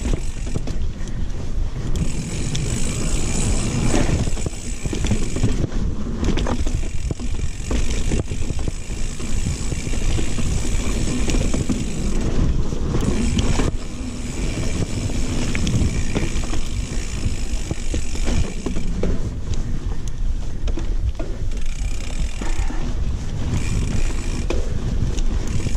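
Mountain bike riding down a forest trail: tyres rolling and the bike rattling over wooden boardwalk, rock and packed dirt, with wind rushing over the handlebar microphone.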